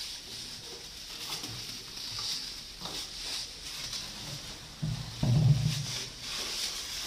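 Black plastic bin liner rustling and crinkling as it is gathered and pulled out of a trash bin, with a louder low rumble about five seconds in as the bag comes out.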